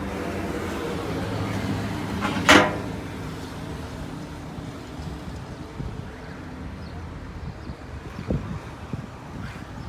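600-litre concrete mixer running, its motor and gear drive giving a steady hum, with one loud short clank about two and a half seconds in; after that the hum drops and the machine noise is quieter, with a few faint knocks.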